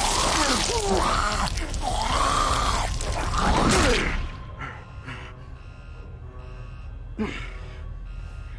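A walker (zombie) snarling and groaning while a man gasps and grunts in a close struggle, loud for about four seconds. Then the sound drops to a quieter bed of steady music tones, with one short cry about seven seconds in.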